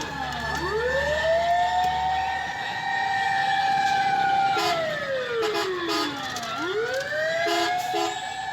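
Fire truck siren in a slow wail: it rises about half a second in, holds a high tone, falls away around six seconds in, then climbs again near the end. Short repeated blasts of a second tone cut in around five and seven and a half seconds in, over a low engine hum at the start.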